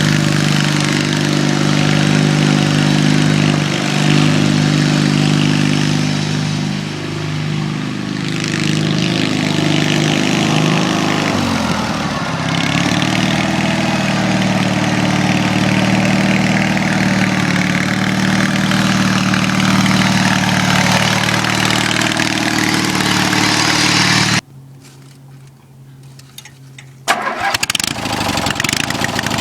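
Rat-rod riding mower's twin-cylinder, 18 hp David Bradley power-unit engine running, its speed dropping about a third of the way through and settling at a steady lower speed. Near the end it cuts out abruptly for about two and a half seconds, then comes back running after a sharp crack.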